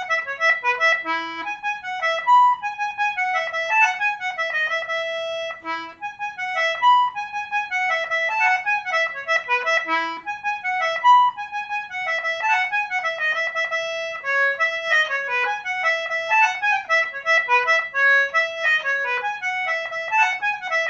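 Concertina playing a fast, flowing melody in E major, quick runs of short notes with an occasional low note under them.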